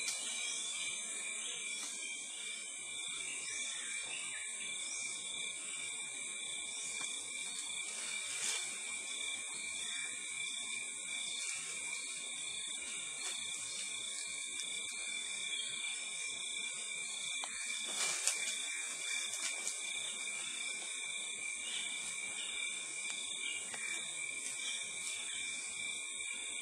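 Steady high-pitched drone of rainforest insects calling together in several constant bands, with a couple of faint clicks.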